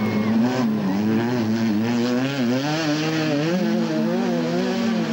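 Engines of stripped-down old race cars on a dirt autocross track, revving and easing off over and over through the bends, with a rushing haze of tyre and gravel noise.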